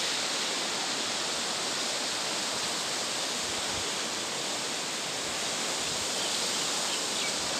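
Fast, turbulent mountain river rushing below: a steady, even noise of churning water.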